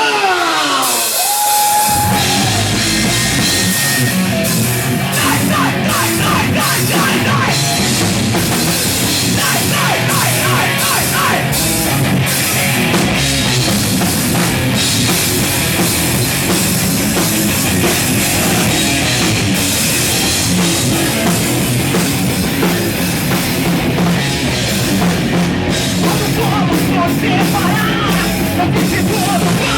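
Hard rock band playing live, with a drum kit driving the beat under amplified instruments.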